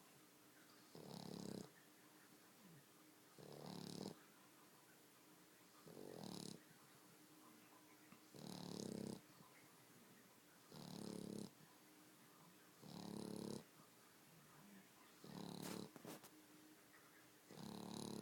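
Boxer dog snoring in her sleep: about eight snores, one every two and a half seconds or so, each a short rasping breath with a faint hiss.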